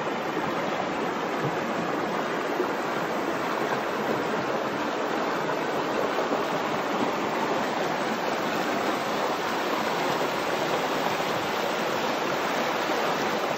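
Creek water rushing steadily, an even hiss with no break or rhythm.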